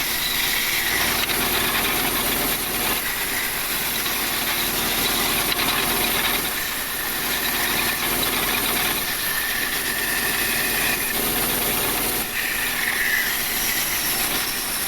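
Power woodworking machinery running steadily, with a faint high whine that rises and fades a few times.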